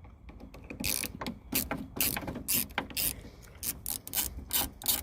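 A ratchet with a T30 Torx bit clicking in quick, even strokes, about three a second, as it backs out the screw that holds a 1995 VW Golf's exterior door handle.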